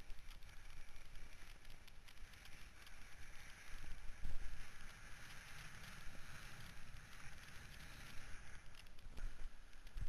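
Wind buffeting the microphone of a kiteboarder's action camera, a rumbling rush with the hiss of the board over the water. There is a louder buffet about four seconds in.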